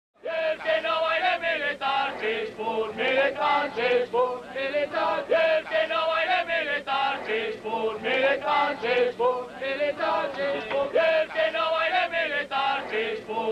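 A group of voices chanting in unison, a short phrase repeated over and over in a steady rhythm, starting abruptly about a quarter second in.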